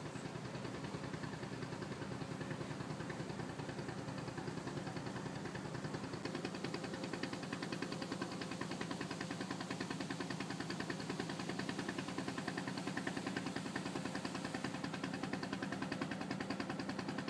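Boat engine running steadily with a fast, even chugging throb.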